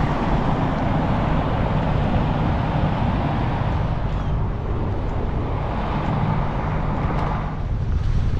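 Steady rush of road traffic and wind noise heard from a moving road bike, with a low rumble; the noise swells briefly a little after seven seconds, then eases.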